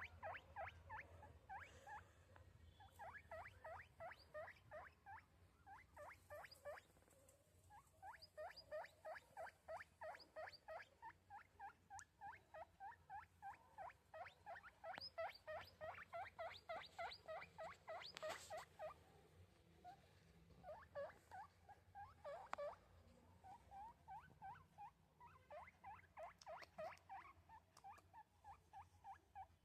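Guinea pig squeaking in long runs of short, rising squeaks, about four a second, with a few brief pauses.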